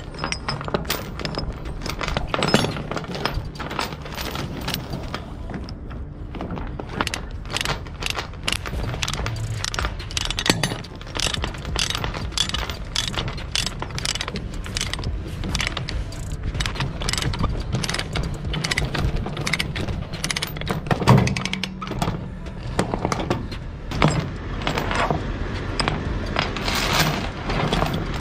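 Ratchet load binder being worked on a steel chain: many irregular metallic clicks and clanks as the binder is cranked and the heavy chain links rattle against the steel plates, with one heavier clank about three quarters of the way through.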